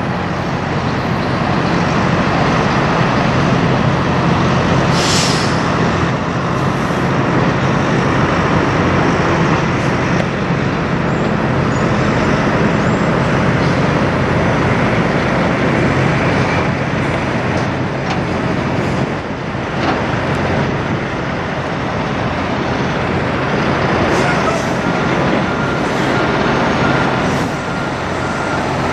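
Kenworth semi truck's diesel engine running as it pulls a loaded trailer at low speed, a steady low engine note throughout. A short hiss about five seconds in.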